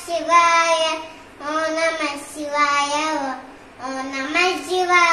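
A young boy singing a devotional chant in short phrases of held notes, with brief pauses between phrases.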